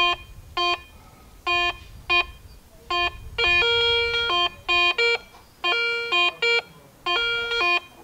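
Handheld metal detector beeping as its coil is swept over a silver bar: a dozen irregular electronic beeps in a low and a higher pitch. From about three seconds in, longer beeps in the higher tone come through, the bright tone that signals the silver bar.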